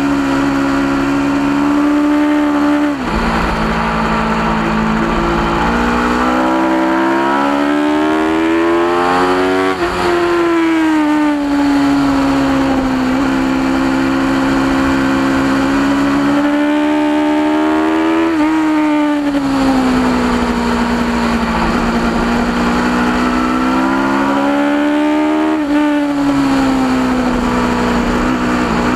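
A 2010 Aprilia RSV4's V4 engine heard from onboard at track speed. The engine note climbs and falls through the corners, with a sudden step in pitch at a gear change about four times.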